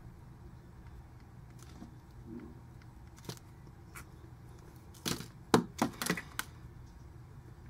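Faint room hum, then a quick run of about five sharp clicks and light knocks a little past the middle, from small tools and materials being handled on the fly-tying bench.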